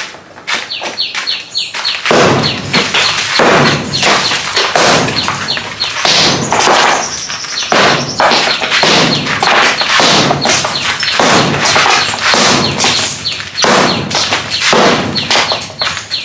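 Repeated hard hammer blows knocking down a cement wall, starting about two seconds in and coming roughly once or twice a second.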